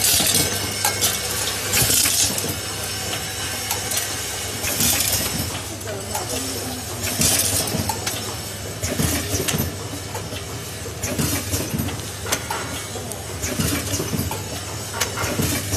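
A vibratory counting and packing machine running, with a steady electric hum from its vibrating feeders and screws and plastic anchors clinking as they drop through the metal filling funnel. Short bursts of hiss come every two to three seconds, several of them in the first half.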